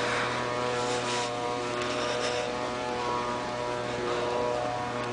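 A steady machine hum holding one unchanging pitch.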